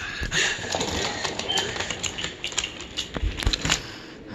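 Wooden toy train cars and track being handled, with irregular clicking and rattling and a few dull knocks about three seconds in.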